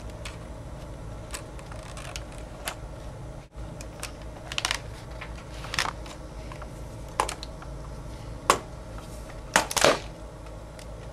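Black MacBook's plastic top case being worked loose and lifted off: irregular clicks and taps, the loudest few near the end, over a steady low hum.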